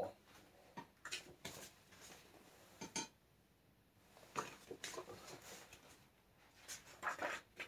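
Faint, scattered paper rustles and small clicks as the pages of a large-format paperback book are handled and turned.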